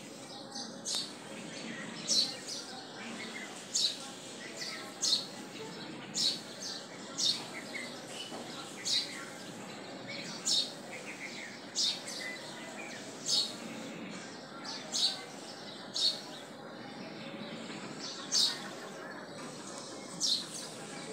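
A bird chirping in short, high notes every second or two over a steady background hiss.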